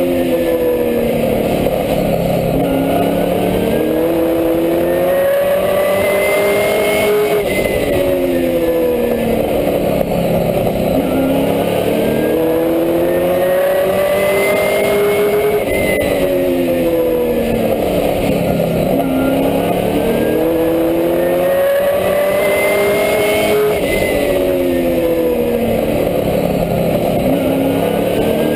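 Race truck's engine heard from inside the cockpit at speed. The pitch climbs steadily for several seconds under throttle, then drops sharply and dips before climbing again, in a cycle that repeats about every 8 seconds as the truck laps the oval.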